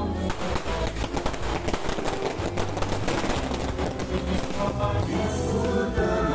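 A string of firecrackers going off in a rapid run of sharp cracks for about five seconds, then thinning out. Music with singing plays throughout.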